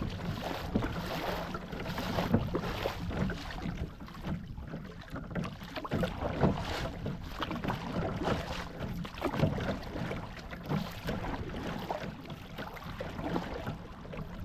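Double-bladed kayak paddle dipping and pulling through seawater, splashing with each stroke, over water lapping against the plastic hull and wind rumbling on the microphone.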